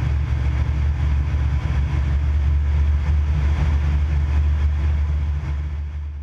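Viper SD4 light aircraft in flight heard from inside the cockpit: its engine and propeller give a steady low drone under the rush of airflow. The sound fades out near the end.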